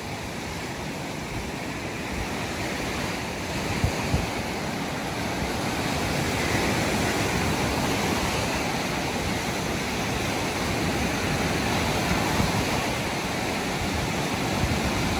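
Small Lake Michigan waves breaking and washing up a sandy shore, a steady rush of surf that grows a little louder over the first few seconds, with wind buffeting the microphone. Two short knocks about four seconds in.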